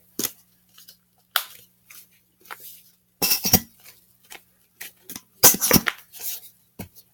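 Homemade slime being worked by hand, giving irregular sharp sticky clicks and crackling pops. The loudest clusters come about three and a half and five and a half seconds in.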